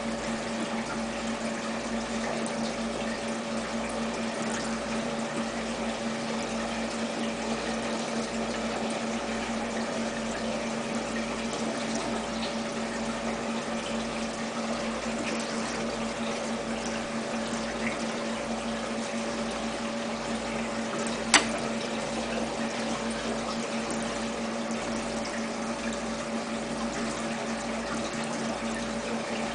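A small water pump running with a steady hum and the sound of moving water, under a slow, even pulsing. One sharp click about two-thirds of the way through.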